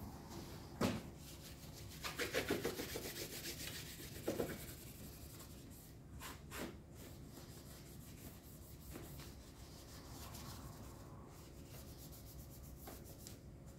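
Cloth rag rubbing and wiping the plastic panels and frame under a motorcycle seat, with a quick run of scrubbing strokes a couple of seconds in, a few light knocks and clicks, then softer wiping.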